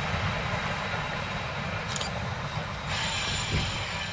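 Heritage train of steam and diesel locomotives rolling away: a steady rumble of wheels on the rails, slowly fading, with a brief higher squeal or hiss about three seconds in.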